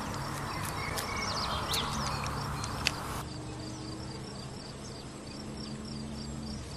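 Birds chirping over a steady hiss at a pond, with a few sharp ticks, one louder just before three seconds in. The sound then cuts to a high chirp repeating steadily, about three times a second.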